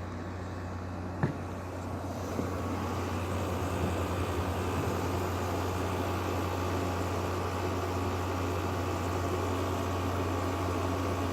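LG 12,000 BTU air conditioner running on cool: a steady hum of compressor and blower with a low drone, and a single sharp click a little over a second in.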